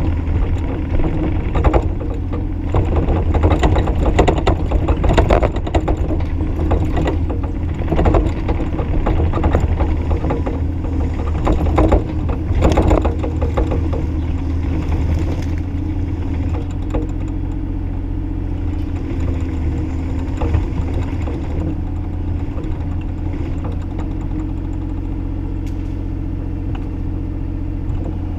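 Bobcat E35i compact excavator's diesel engine running steadily under work, with repeated clanks and knocks through roughly the first half, then running smoothly with fewer knocks.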